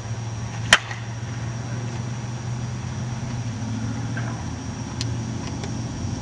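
A prototype slowpitch softball bat hits the ball with one sharp crack, less than a second in, over a steady low hum.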